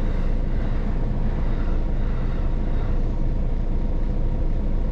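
A train passing fast over a level crossing, heard from inside a large truck's cab over the truck's idling diesel engine, a steady even rumble.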